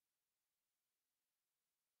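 Silence: the audio track is essentially empty, with only a very faint hiss.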